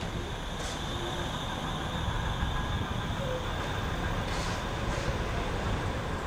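Manchester Metrolink M5000 light-rail tram pulling into the platform and slowing, a steady low rumble with a thin high whine over it. Short high hisses come about half a second in and twice more around four to five seconds in.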